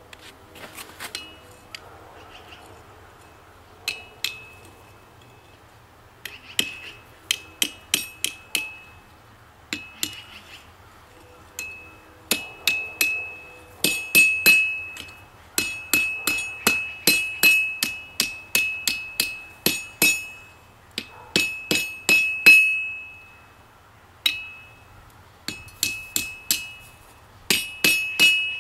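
Hammer blows on hot rebar against an anvil, coming in runs of several strikes a second with short pauses, each blow ringing.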